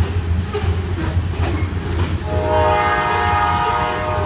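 A diesel-hauled freight train rumbling on the rails, with irregular wheel clicks. A little over two seconds in, the locomotive's air horn sounds one long blast, several tones held together, which carries on to the end.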